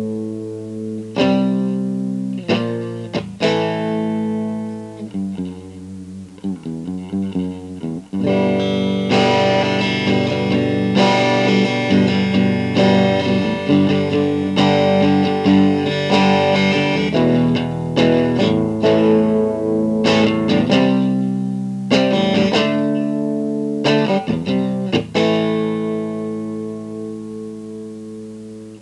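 Electric guitar played through a mini Marshall JCM800 amplifier into a small cabinet with RFT L2403 12.5 cm TV speakers. Ringing chords give way to a busier, louder stretch of playing, and near the end a last chord rings out and fades.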